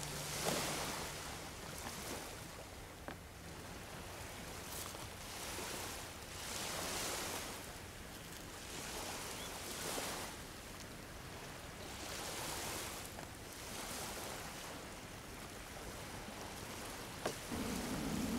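Ocean surf washing onto a beach, each wave swelling and fading every two to three seconds, with a few faint clicks.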